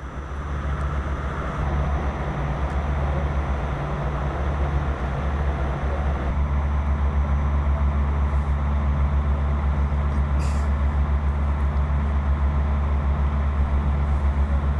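A vehicle engine running steadily with a low, pulsing drone, over the even rush of floodwater.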